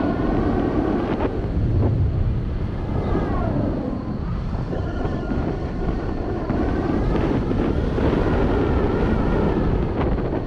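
Wind rushing over the microphone during a paraglider's descent, a steady airflow noise. A faint wavering whistle rises and falls over it at times.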